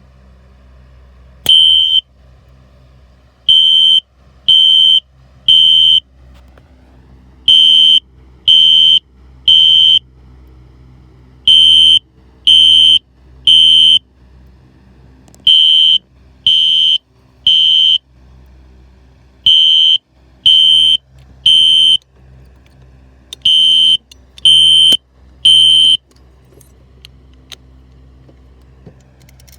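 Fire alarm horn strobes, a System Sensor SpectrAlert Classic and a Gentex SHG, set off by a Honeywell pull station. A sharp click and a single short beep are followed by loud, high-pitched beeps in groups of three, six groups in all. This is the temporal-3 evacuation pattern, and it stops near the end.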